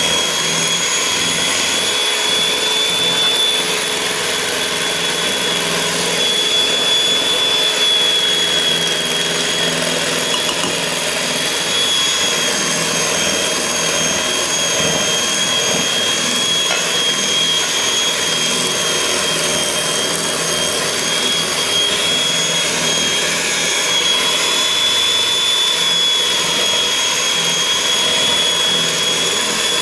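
Electric mixer running steadily with a high whine, creaming oil with white and brown sugar for a carrot cake batter.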